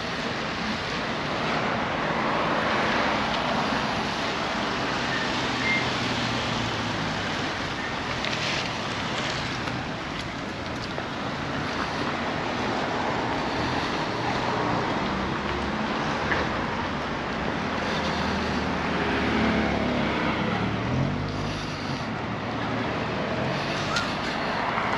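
Road traffic: cars driving past with a steady hiss of tyres and engine hum, one vehicle passing more loudly near the end.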